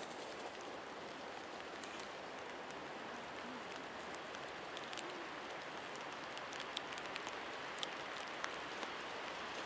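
Steady rain falling, a continuous hiss with scattered sharp drop ticks that come more often in the second half.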